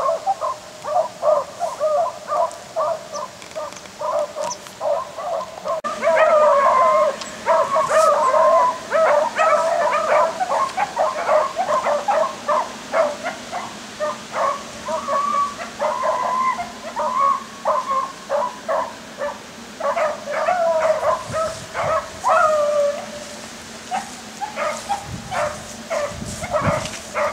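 A pack of rabbit hounds baying while running a rabbit's trail. Steady repeated calls at first, then more voices join and the cry grows louder about six seconds in.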